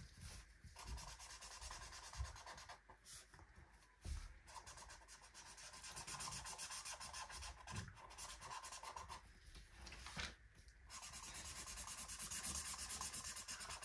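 Felt-tip marker scribbling on paper: fast back-and-forth colouring strokes that come in stretches with brief pauses between them.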